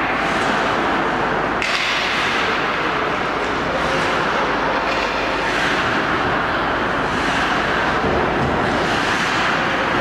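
Steady loud noise with repeated hissing scrapes of hockey skate blades carving and cutting on the ice during tight turns.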